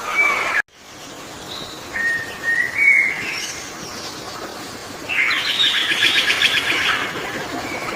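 Birds calling: a short chirp, a whistled call that glides upward, then a fast chattering trill lasting about two seconds. The sound drops out completely for a moment less than a second in.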